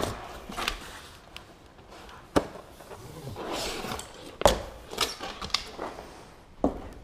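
Unpacking a large thin plastic sheet from a cardboard box: scattered sharp knocks and taps of the sheet and cardboard, with rustling and a short scraping slide of the sheet against the packing about halfway through.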